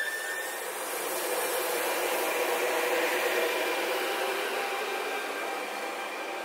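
FS E464 electric locomotive pulling away at low speed: a steady rushing noise with a faint hum, fading slowly over the last few seconds as it moves off.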